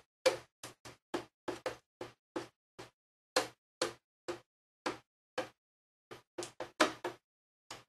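Screwdriver working the captive screws on the back case of an iMac G5: a run of short, sharp clicks and knocks at irregular intervals, about two or three a second.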